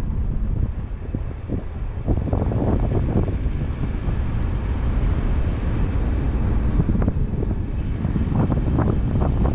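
Wind buffeting a car-mounted microphone in irregular gusts, over the steady low rumble of the car driving on the road.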